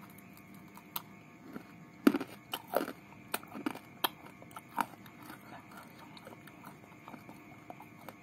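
Close-up chewing of crispy fried chicken: sharp crackling crunches come thickest in the first five seconds, then thin out to quieter chewing.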